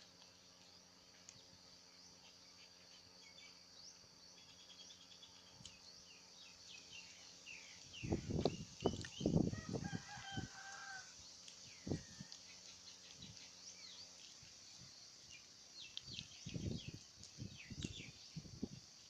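A rooster crows once about ten seconds in, among chirping small birds and a steady high hiss. Loud dull thumps come in two clusters, just before the crow and again near the end, and a low steady hum stops partway through.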